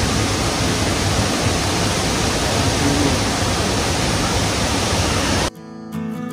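Steady rushing roar of the Burney Falls waterfall pouring into its pool. It cuts off abruptly about five and a half seconds in, and strummed acoustic guitar music takes over.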